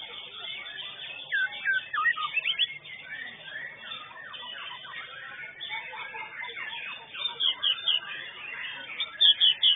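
White-rumped shama (murai batu) in contest song: a fast, varied stream of whistles, sweeps and chirps, with loud bursts of rapidly repeated notes about a second in, again around seven to eight seconds, and just before the end.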